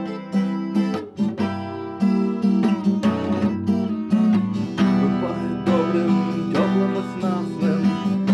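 Instrumental break in a song: acoustic guitar strummed in a steady rhythm, with a sustained low note underneath.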